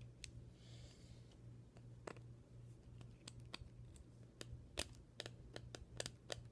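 Faint, scattered clicks and taps of a full-metal green-gas airsoft pistol's parts being worked by hand while trying to take it apart; the clicks come more often in the second half.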